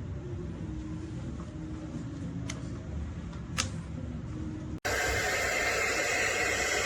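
Hot air styler (blow dryer brush) blowing steadily on its low setting, coming in abruptly about three-quarters of the way through. Before that, only a low hum with two faint clicks.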